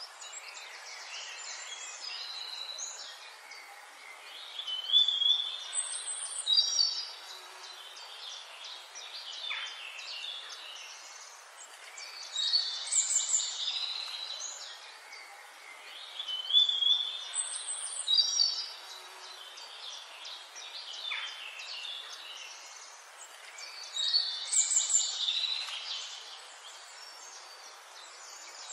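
A songbird sings loud, varied phrases of high whistled and chattering notes in repeated bouts about every six seconds. Quieter bird calls and a steady forest hiss run in between.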